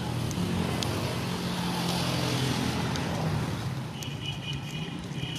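Road traffic: a vehicle engine running close by, with a car going past about two seconds in. Faint high chirping comes in near the end.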